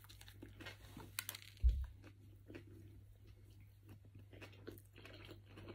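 A man biting into a burger and chewing a mouthful, with faint small crunches and wet mouth clicks. There is a single dull low thump about a second and a half in.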